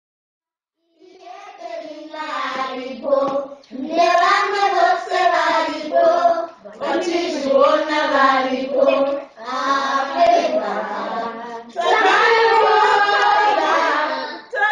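A group of children singing a song together, in phrases with held notes. The singing begins about a second in.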